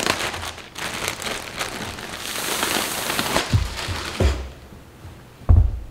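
Clear plastic wrap crinkling as it is pulled off a rolled, compressed memory foam pillow. A few dull thumps follow in the second half, the last and loudest near the end.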